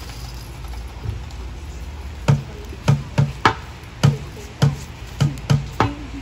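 A steady rhythm of sharp percussive knocks, roughly two a second, beginning about two seconds in after a stretch of low room noise.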